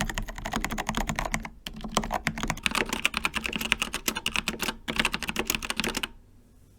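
Fast typing on a Melgeek Pixel Pro mechanical keyboard with Kailh Pixel T switches: a dense run of key clacks with two brief pauses, stopping about six seconds in.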